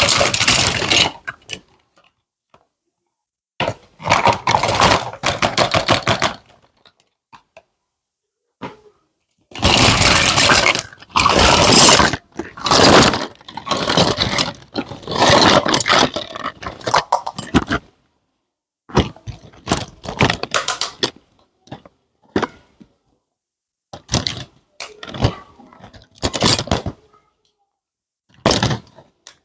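Bursts of crinkling, crackling and scraping as toy-set packaging is unwrapped and small plastic toy pieces are handled, broken by several completely silent gaps.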